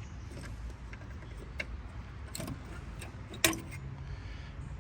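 A few light metallic clicks and clinks, the loudest near the end, as a brake caliper's retaining wire is handled with needle-nose pliers, over a low steady background hum.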